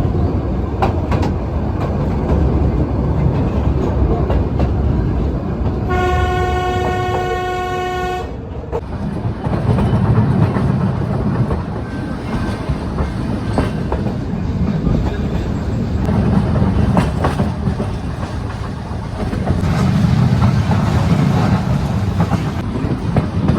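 Nilgiri Mountain Railway train running along the track: a steady rumble and clatter of wheels on rail, swelling and easing. About six seconds in, the X-class steam locomotive sounds its whistle once, a single steady note lasting about two and a half seconds.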